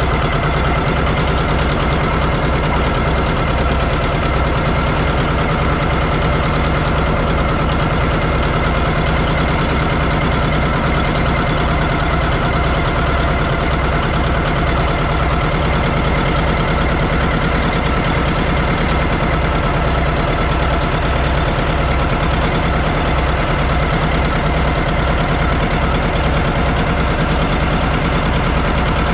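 John Deere 830's two-cylinder diesel engine running steadily while the tractor slowly pulls a weight-transfer sled, with an even low pulse and no change in speed.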